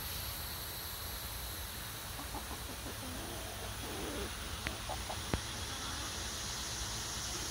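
Chickens clucking softly and quietly over a steady hiss, with two short sharp clicks about a second apart near the middle.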